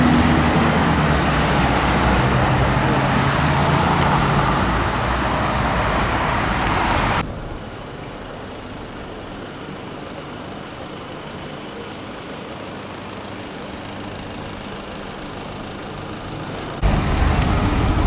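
Audi R8's V10 engine running steadily at low revs, cutting off abruptly about seven seconds in to a quieter hum of street traffic. Loud engine sound cuts back in suddenly near the end.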